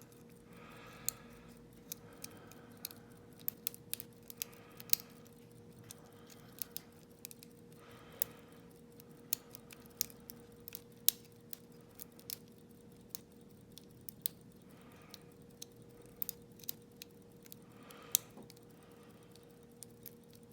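Lock pick and tension tool working the pins of a Yale Y210C/51 lock cylinder: irregular sharp metallic ticks and clicks, with short scraping passes every few seconds, as the picker tries to set the pins.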